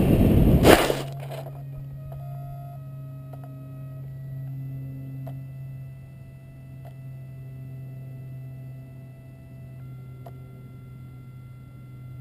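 Loud rushing flight noise on the Maxi Swift flying wing's onboard GoPro, cut off less than a second in by a single thud as the plane comes down in the grass. A steady low electronic hum with several faint thin whining tones follows, with an occasional faint click.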